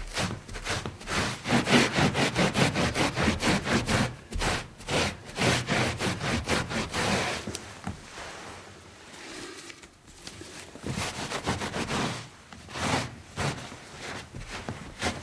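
Scrubbing a spill or stain by hand: quick back-and-forth rubbing strokes, several a second. About halfway through the rubbing eases off for a couple of seconds, then picks up again.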